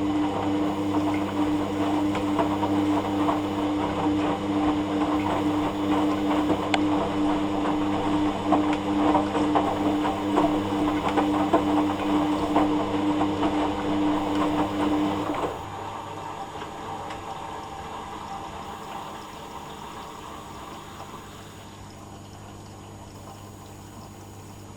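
Hoover Dynamic Next washing machine running its pump: a steady electric hum over water gurgling. The pump cuts off suddenly about fifteen seconds in, leaving a quieter hum and the sound of water in the drum.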